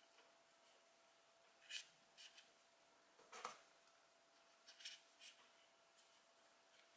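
Near silence, broken by a few faint, brief rustles and light clicks from hands handling a small crocheted toy stuck with pins.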